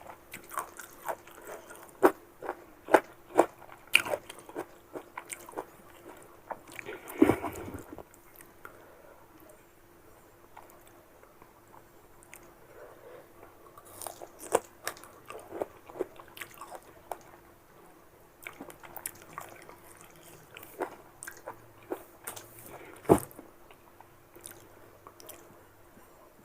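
Close-up crunching and chewing of crisp unripe mango, in quick runs of crunches. There is a louder bite about seven seconds in and a sharp crack near the end. A quieter stretch comes in the middle.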